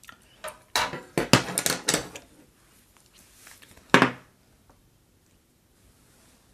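Utensils clattering against the dishes and the metal tray: a quick run of clicks in the first two seconds and one louder knock about four seconds in.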